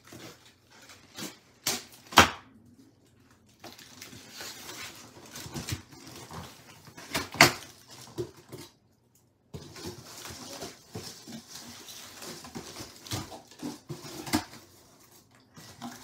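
A cardboard box being cut open with scissors: scratchy cutting and scraping of tape and cardboard, the flaps rustling, with a few sharp knocks, the loudest about two and seven seconds in.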